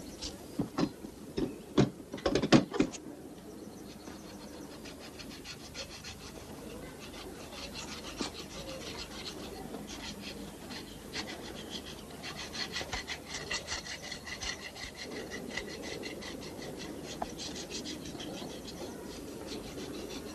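A few knocks in the first three seconds, then a long run of quick, even rubbing strokes: a cloth or brush polishing small parts by hand on a table.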